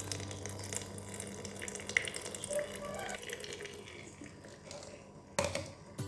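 Freshly blended pineapple and ginger juice pouring and trickling through a strainer, with a single sharp knock near the end.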